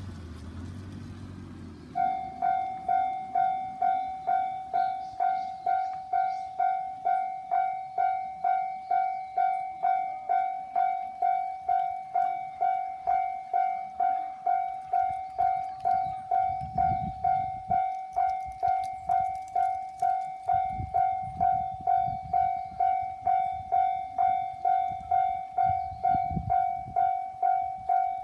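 Japanese railway level crossing warning bell starts about two seconds in and rings steadily, a little under two strikes a second. A train's low rumble joins in the second half.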